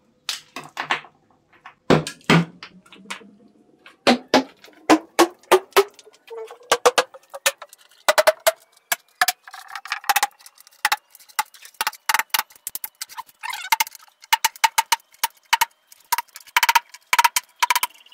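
Small hammer striking lumps of quicklime on a board, crushing them into small pieces: a run of sharp, irregular knocks, a few a second and coming faster near the end. A faint tone rises slowly in pitch behind the knocks, then holds steady.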